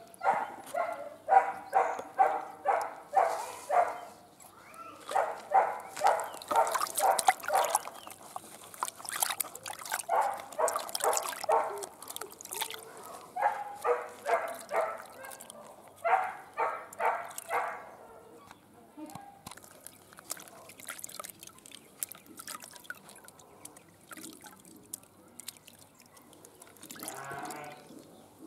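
Runs of short, pitched animal calls, two or three a second, in bursts of several, which stop after about 18 seconds. Under them is water sloshing and dripping as eggs are rubbed clean by hand in a bucket.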